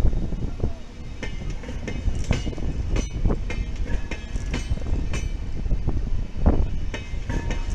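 LHB passenger coaches rolling past, their wheels clacking irregularly over rail joints above a steady low rumble. Short high-pitched squeals come and go.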